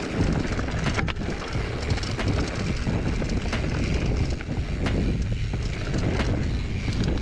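A mountain bike rolling fast over dry dirt singletrack: a steady low rumble from the tyres and from wind on the camera mic, with scattered sharp clicks and rattles from the bike over bumps.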